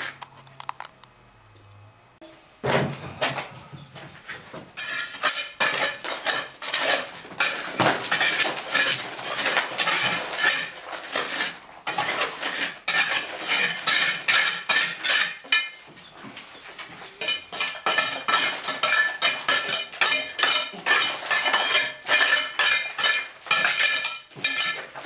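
Steel mason's trowel scraping and clinking against stone and cement mortar in rapid, repeated strokes while the rubble-stone infill is packed and rough pointed. It starts about two and a half seconds in and breaks off briefly twice.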